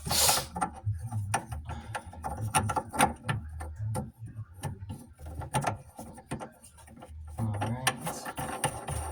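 Rapid, irregular small clicks and light knocks of plumbing parts being handled and fitted together, with a low hum underneath.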